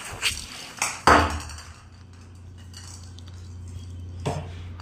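A small ball striking and bouncing on a hard tiled floor: a few sharp knocks, the loudest about a second in and another near the end, over a steady low hum.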